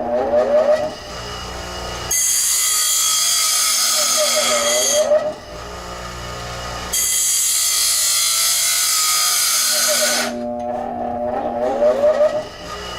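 Bench grinder running, its motor humming steadily, with two spells of about three seconds each, starting about two and seven seconds in, where a wheel grinds against metal in a loud, hissing rasp.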